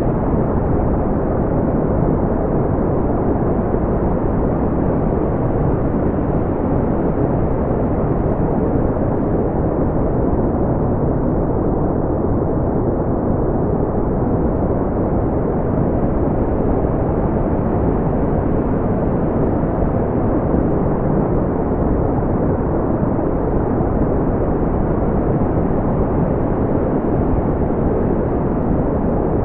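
Steady, smoothed brown noise: an even, deep rumbling hiss with most of its weight in the low end and little above the midrange, unchanging throughout.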